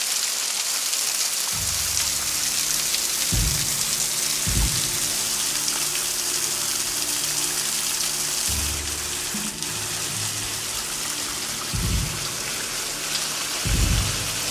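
Steady rushing hiss of the Brankov waterfall, a thin stream spraying down a vertical rock face and splashing over wet rock. Background music with low sustained notes comes in about a second and a half in.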